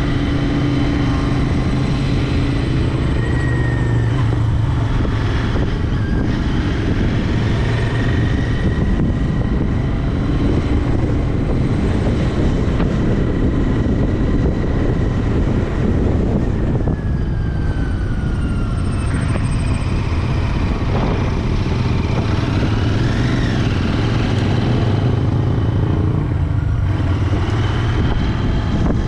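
Royal Enfield Interceptor 650's parallel-twin engine and exhaust running steadily under way, with a fall in pitch a little past halfway and a rise in revs a few seconds later.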